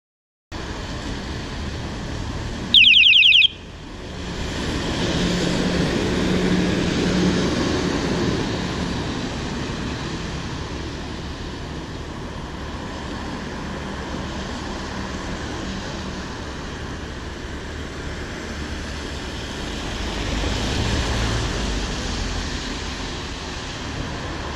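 Traffic noise at a wet road junction: a steady wash of tyre and engine sound that swells as vehicles pass, around five to eight seconds in and again about twenty seconds in. About three seconds in, a loud, high-pitched beep sounds for under a second and cuts off sharply. The audio opens with half a second of dead silence.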